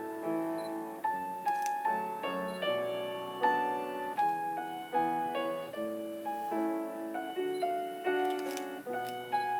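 Solo piano playing, a melody of single notes over chords at a moderate pace, each note struck and left to ring and fade.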